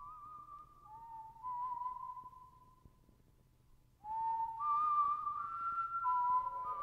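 Whistled melody of slow, long-held notes, with two lines often overlapping in harmony. It grows louder about four seconds in.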